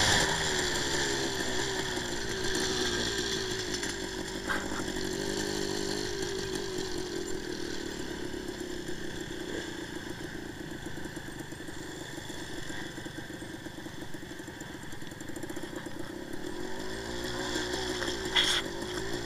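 1984 Suzuki TS185's single-cylinder two-stroke engine running under way, its revs rising and falling with the throttle. There is a short knock about four seconds in and a louder, sharp knock near the end.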